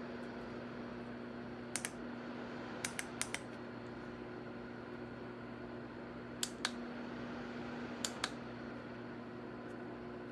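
Lasko T42951 Wind Curve tower fan running with a steady hum and airflow noise. Sharp clicks come through it, mostly in close pairs, four times.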